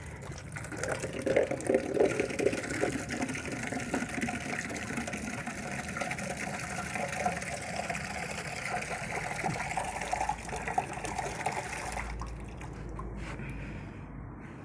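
Water running steadily from an outdoor wall tap, shut off suddenly about twelve seconds in.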